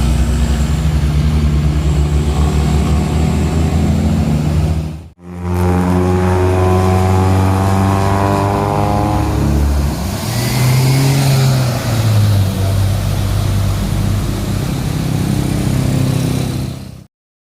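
Heavy diesel vehicle engines pulling up a steep climb: first a deep, steady engine note, then after a sudden cut another vehicle whose engine note rises steadily as it accelerates past, before the sound drops out briefly near the end.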